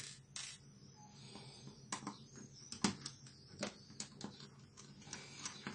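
Irregular light clicks and knocks of a netbook's plastic case and a screwdriver being handled and set down on a wooden table, about a dozen sharp taps at uneven intervals.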